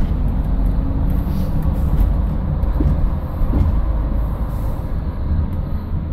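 Class 115 diesel-mechanical multiple unit running slowly, heard from inside the driver's cab: a steady low rumble of the diesel engine and running gear, with a few faint clicks.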